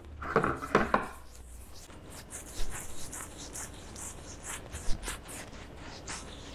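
Fingertips rubbing and patting sunscreen cream into stubbly skin on the face, heard close up: a run of short, irregular scratchy rubs and soft taps. A few louder knocks come in the first second.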